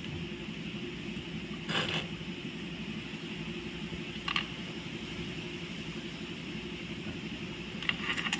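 Small clicks and taps from a diode's wire lead being fitted to a 12 V battery terminal by hand: one sharper click about two seconds in, a fainter one a little after halfway, and a few light ticks near the end, over a steady background hum.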